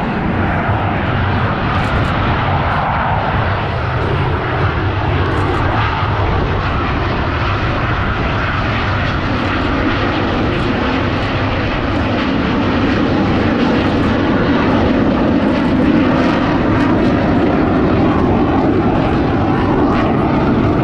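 Blue Angels F/A-18 Super Hornet jet engines running loud and steady in a long, rushing rumble as the jets fly the display, growing a little louder in the second half.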